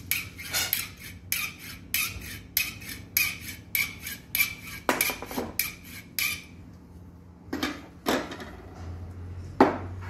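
Steel copper-tube flaring bar clinking as it is handled and adjusted: a quick string of light metallic clicks, about three or four a second, for the first six seconds. Then a pause and a few louder knocks, the last and loudest near the end.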